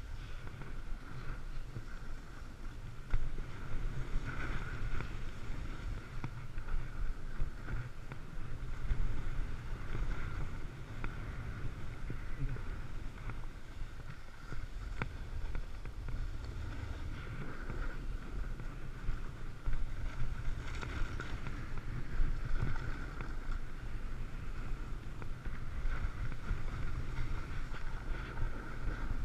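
Snowboard sliding and carving over rough, firm snow: a continuous scraping hiss that swells and fades with each turn, over a steady rumble of wind on the microphone.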